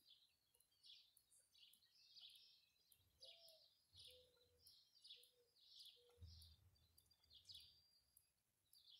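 Faint birdsong: small birds chirping over and over in quick short phrases, against quiet outdoor background noise.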